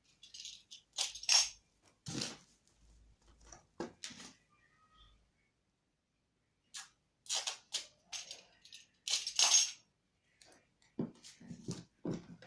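Intermittent rustling and light clattering of cordless drills and packing material being handled, with several sharp crinkles and knocks at irregular intervals.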